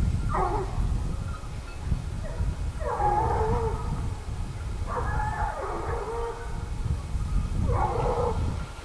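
A pack of hunting hounds baying in four drawn-out bouts of falling cries, giving tongue as they run on a wild boar's scent.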